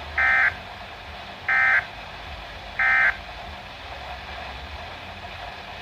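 Weather radio sounding three short, identical bursts of SAME digital data, about a second and a half apart, over a low hiss. Their shortness marks them as the end-of-message code that closes a broadcast alert.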